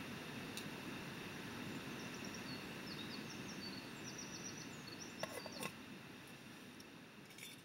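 Small birds chirping in a run of short, high notes over a steady low background noise, with a few sharp clicks about five seconds in and again near the end.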